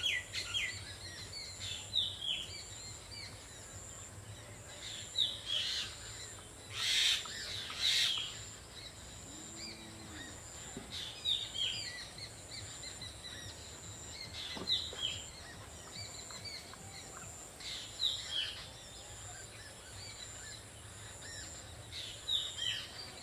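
Small birds chirping in short, falling calls every second or two over a faint background hiss, with two brief louder noises about seven and eight seconds in.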